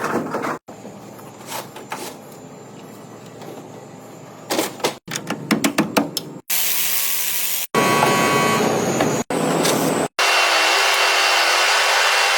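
Clicks and knocks of handwork, then a power tool running steadily in several short clips with sudden cuts between them.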